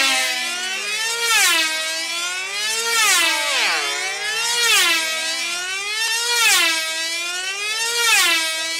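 High-revving engine of a control-line Open Rat racing model lapping the circle at about 140–150 mph, a loud whine that swells and dips in pitch once a lap, about every 1.7 seconds.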